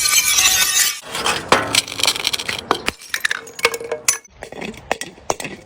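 A glass bottle shattering, the crash dying away about a second in, then broken shards clinking and tinkling as they scatter and settle, in many separate sharp clinks that grow fainter.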